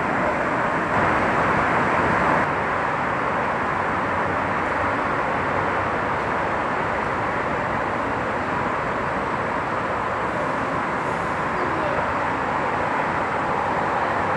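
Steady rushing noise of jet aircraft engines, briefly louder from about one second in to about two and a half seconds in.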